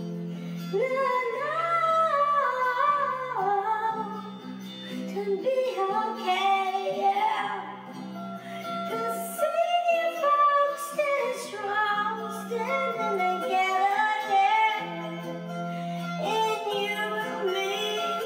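Song: a female voice sings a melody over a guitar accompaniment, with held bass notes changing every second or two.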